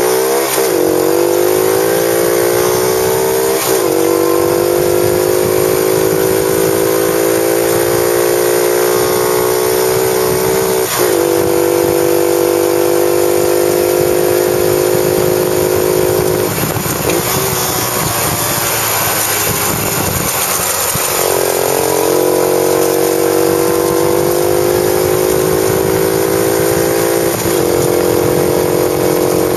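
Small dirt bike engine running hard at speed, its pitch climbing at first and then holding high, with brief dips in pitch several times, over wind noise on the mounted microphone.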